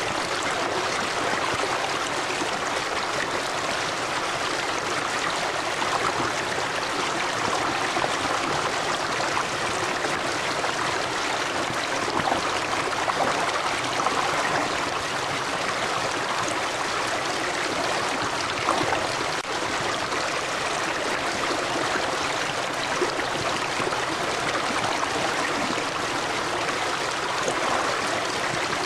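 River water running over rocks, a steady rushing and babbling with small splashes.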